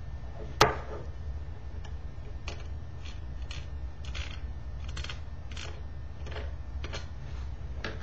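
Small screwdriver working screws out of a laptop cooling fan and heat sink, with light irregular clicks and scrapes of metal and plastic parts and one sharp click about half a second in. A thump near the end as the fan is set down on the wooden table.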